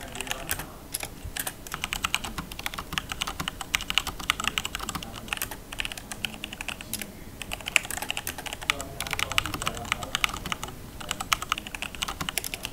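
Typing on a Logitech G413 mechanical keyboard with Romer-G tactile switches: a fast, continuous run of keystroke clicks.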